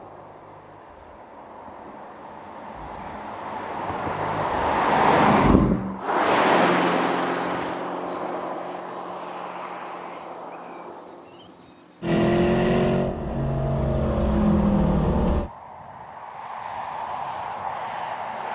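Porsche Cayenne GTS Coupe's 4.0-litre twin-turbo V8 through its sport exhaust, heard in separate driving shots. It builds up and passes at about five to six seconds in, then fades. About twelve seconds in it switches suddenly to a close, loud engine note with a clear pitch for about three seconds, then drops back to a quieter, rising engine sound.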